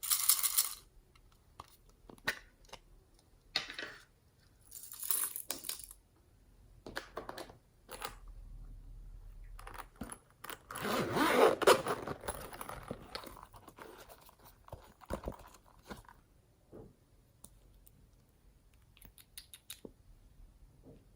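Slime being mixed and pressed by hand in a container, giving irregular sticky crackles, squishes and small clicks, with the loudest, longest stretch of squishing about halfway through.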